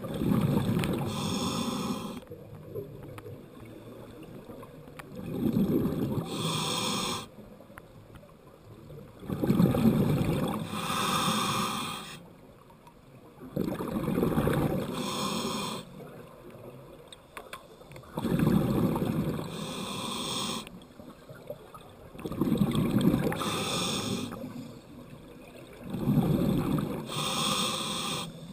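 Scuba regulator breathing heard underwater: a hiss on each inhale, then a rumble of exhaled bubbles. The cycle repeats steadily, about seven breaths, one every four seconds or so.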